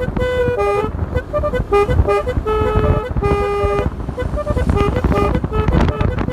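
Basuri telolet multi-tone horn on a motorcycle playing a melody of short notes, a few held longer near the middle, over a low rumble.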